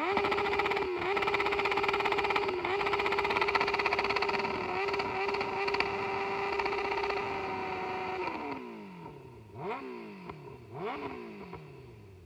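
Suzuki GSX-F inline-four engine held on the rev limiter, a steady high note that stutters as the limiter cuts in and out, for about eight seconds; the sustained limiter run has the exhaust glowing red-hot. Then the revs drop away, the throttle is blipped twice and the engine falls back toward idle.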